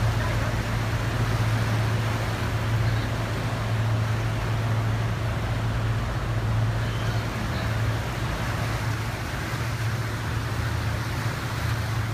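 Car ferry Schulpengat's engines running with a steady low hum while its propellers churn the water, as the ship pulls away from its berth.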